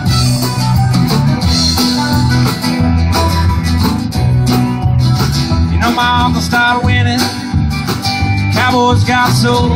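Live country band playing an instrumental break: electric guitar, mandolin and strummed acoustic guitar over drums, with a lead line that bends and wavers about six and nine seconds in.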